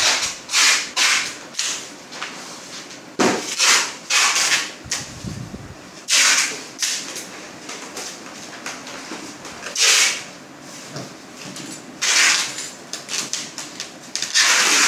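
Flattened corrugated cardboard boxes and large paper sheets being slid, folded and pressed flat by hand, in irregular swishes and scrapes.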